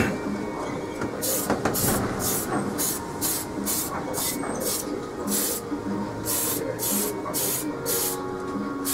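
Aerosol spray can of Tamiya olive drab paint hissing in short bursts, about two a second, from about a second in: quick, light passes of paint.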